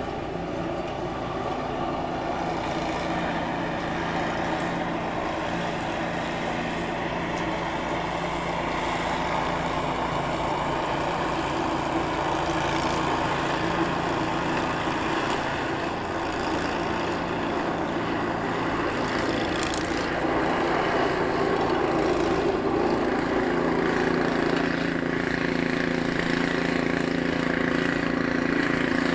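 Pickup plow truck's engine running steadily, with a constant hum, getting louder over the second half as the truck draws near.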